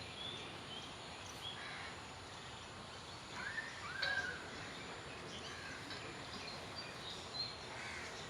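Several wild birds chirping and whistling over a steady background hiss, with a louder pair of calls about three and a half to four seconds in.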